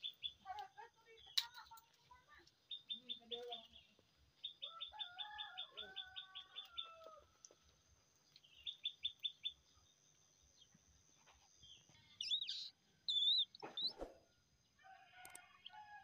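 Birds chirping: a small bird repeats quick trills of short high notes several times, with other lower, sliding bird calls between them. A single sharp knock comes near the end.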